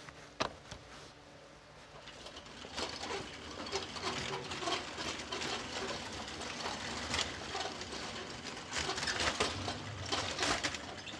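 Black plastic nursery pots knocking and scraping as they are handled and set down, a busy run of short clicks and rustles. It picks up about two or three seconds in and is loudest near the end.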